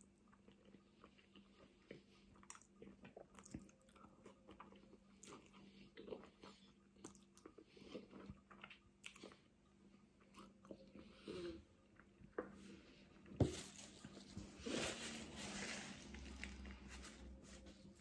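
Faint, close-miked chewing of a mouthful of spaghetti bolognese: many small wet mouth clicks. About thirteen seconds in there is one sharp knock, followed by a couple of seconds of louder noise.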